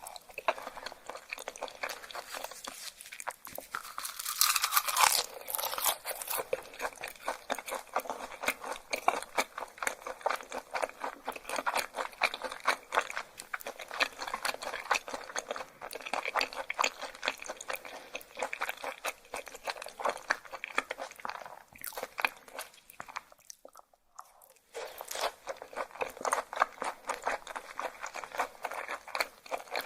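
Close-miked chewing of raw yellowtail (buri) sashimi: rapid, crisp, wet crunching clicks, with a brief pause a little past two-thirds of the way through.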